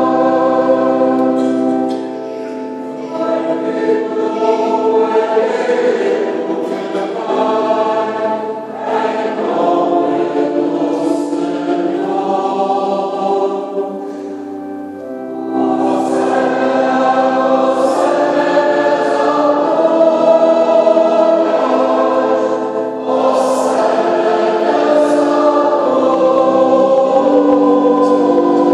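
Church choir singing a hymn in sustained phrases, with short breaks between phrases about two seconds in and again around the middle.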